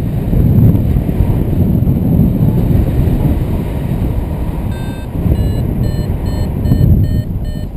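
Wind rushing over the microphone in flight under a paraglider wing, and from about five seconds in a paragliding variometer beeping in a quick run of short tones, a few a second, the sound it makes when the glider is climbing in lift.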